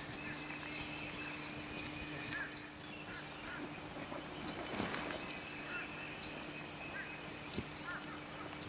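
Faint bird calls: short hooked notes repeating every second or two over a steady low hum and quiet field background.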